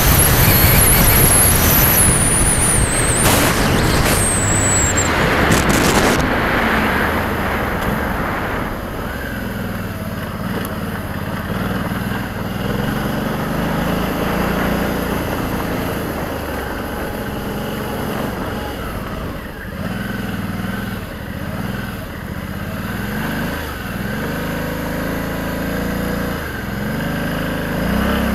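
Motorcycle riding with heavy wind noise on the microphone for the first several seconds, which fades as it slows. Then the engine runs at low speed, its note rising and falling again and again as the throttle is worked on a dirt trail.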